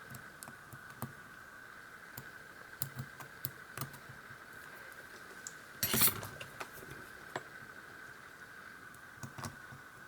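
Sparse, light clicks and taps of small metal lock parts and tools as someone works at a tiny wafer stuck in a pin chamber of a disassembled brass padlock, with a louder short clatter about six seconds in.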